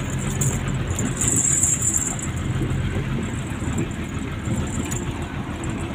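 Truck engine running at a steady hum, heard from inside the cab. Over it is a steady hiss of rain and water from the tyres driving through a flooded road.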